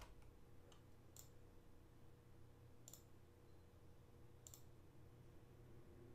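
Faint computer mouse clicks, three clear ones about a second and a half apart, against near silence with a low room hum.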